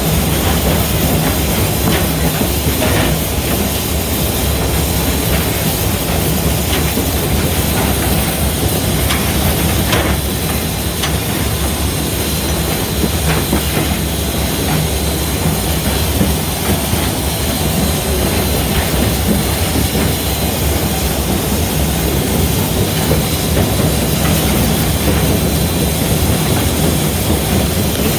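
Steady running noise heard inside the cab of Southern Railway 4501, a 2-8-2 Mikado steam locomotive under way: the din of running gear and wheels on rail, with steam hiss and a few faint clicks.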